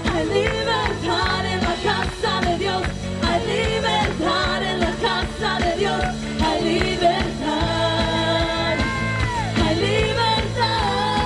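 Live worship music: a singer over a band with steady bass and sustained chords, the voice holding one long note that falls away about nine seconds in.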